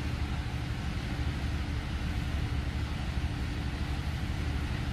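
Steady low rumble with a faint constant hum and an even hiss over it, unchanging throughout: machine-like background noise, with no call from the monkeys.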